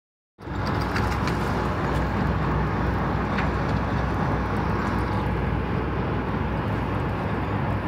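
Steady low rumble of a fishing boat's engine running, with a few faint clicks.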